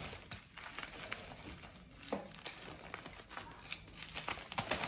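Black plastic mailer bag crinkling and rustling as it is handled and cut open with a cutter and scissors, with irregular sharp crackles that bunch together near the end.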